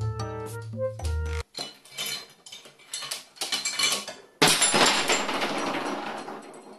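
Background music, then a carrion crow knocking its beak against a white dish of walnuts on a metal shelf top: a run of sharp clicks and knocks. About four and a half seconds in comes a sudden louder clatter that fades over a couple of seconds.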